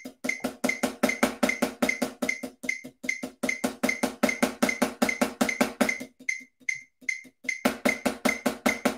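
Snare drum struck with sticks in fast, even strokes, about five a second, against a steady metronome click. The playing varies in loudness: it drops to soft strokes about six seconds in and comes back loud near the end.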